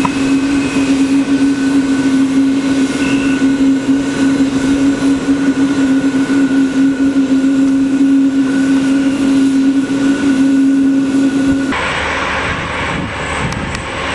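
Boeing 777-200 jet engines running at low power as the airliner taxis, a steady loud hum with a fainter high whine above it. About three-quarters of the way through, the sound cuts abruptly to a broader, rushing jet rumble.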